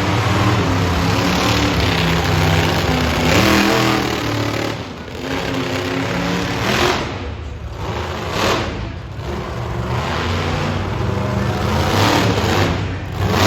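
Monster truck engine revving hard, its pitch climbing and falling as the throttle opens and shuts, with short lulls about five and nine seconds in.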